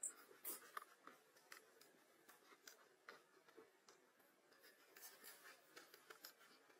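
Near silence with faint, scattered small clicks and crackles.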